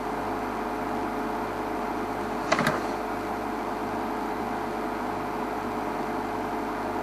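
Safari vehicle's engine idling with a steady hum, broken by one brief sharp knock about two and a half seconds in.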